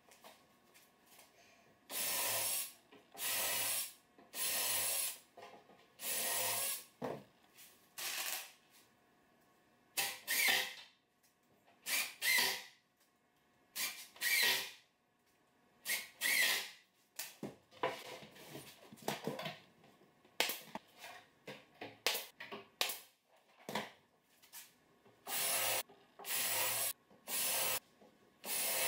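Cordless drill/driver running in repeated short bursts of about a second, sometimes with a rising whine as it spins up, driving screws through the side panel of a prefinished maple plywood cabinet box. Short knocks and clicks come between the bursts.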